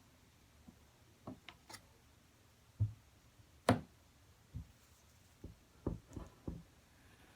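Irregular light knocks and taps, about ten of them spread unevenly, the loudest a sharp knock near the middle.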